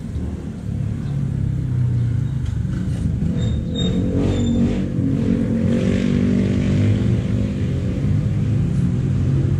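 A steady, low engine rumble, like a motor vehicle running close by, with its pitch wavering slightly.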